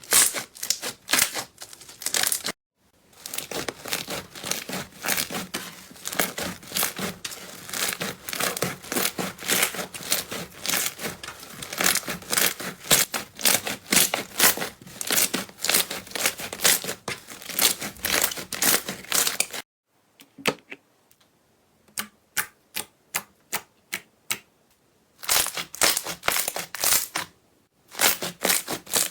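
Slime being squeezed and poked by hand, making rapid crackling clicks and pops, broken by sudden cuts into silence between clips.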